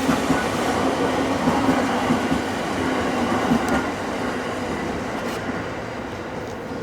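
The Hokutosei sleeper train's coaches roll past on the rails, then the sound fades away steadily from about four seconds in as the train recedes.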